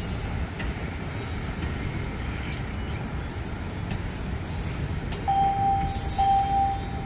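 Amtrak passenger train cars rolling past with a steady rumble of wheels on rails. Near the end a steady high squeal sounds twice in a row.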